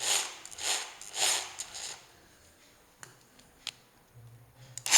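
Handling noises: four short rustling scrapes in the first two seconds, then two sharp clicks about half a second apart, and a faint low hum near the end.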